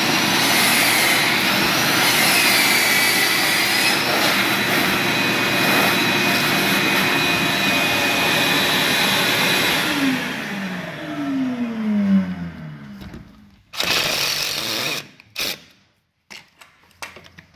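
Ridgid 12-gallon wet/dry shop vacuum running with a wavering whistle, clearing concrete dust out of freshly drilled anchor holes. It is switched off about ten seconds in, its pitch falling as the motor winds down. Then comes a short burst of noise and a few sharp knocks near the end.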